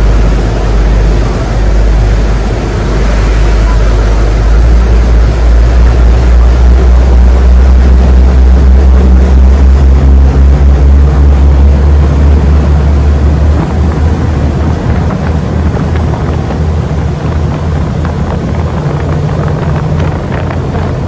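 Passenger ferry's engines running with a loud, deep drone, and wind buffeting the microphone. The drone strengthens about four seconds in and eases off gradually over the second half.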